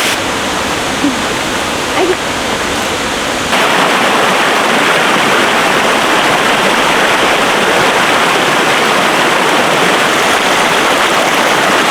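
Waterfall rushing steadily, a constant roar of falling water that turns abruptly louder and brighter about three and a half seconds in.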